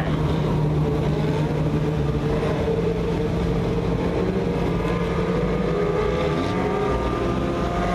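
Mini sprint car engines running together as the cars lap a dirt oval: a steady engine drone with only slight rises and falls in pitch.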